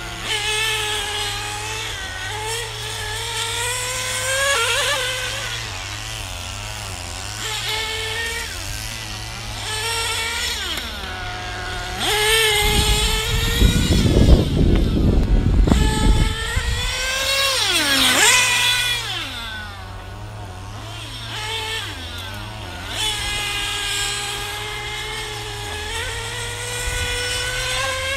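Two-stroke nitro engines of 1/8-scale XRAY GTX 8.2 GT cars, REDS GT 5T engines, screaming around a track, pitch rising on the straights and dropping off into the corners. A car passing close makes a sharp rise and fall in pitch about 18 seconds in, and a loud low rumble rises over the engines for a few seconds in the middle.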